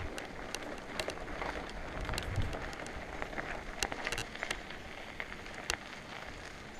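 Mountain bike tyres rolling over loose gravel: a steady crunching hiss with scattered sharp clicks of stones.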